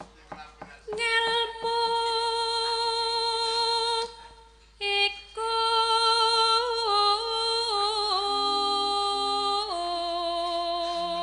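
Javanese sindhen (female gamelan singer) singing into a microphone. She holds long notes, breaks off briefly about four seconds in, then sings ornamented wavering turns with the melody stepping down in pitch toward the end.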